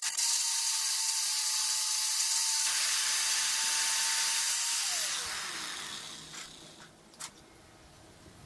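Angle grinder on steel: switched on with a steady high whine and heavy hiss, then switched off about five seconds in, its pitch falling as the disc winds down. Two light knocks follow.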